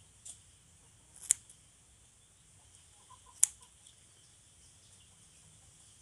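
Scissors snipping durian leaves: a faint snip, then two sharp snips about two seconds apart.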